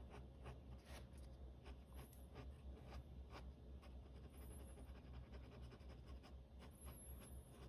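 Faint scratching of a pen on sketchbook paper: many quick, short hatching strokes at an irregular pace, finishing touches on a drawing.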